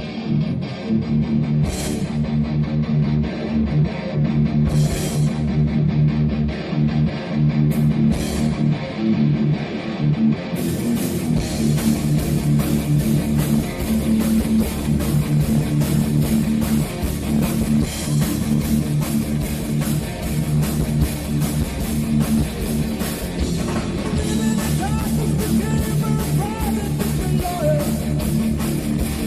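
Heavy metal band playing live: an electric guitar riff over bass, with a few short crashes at first, and the full band coming in about ten seconds in, brighter and denser.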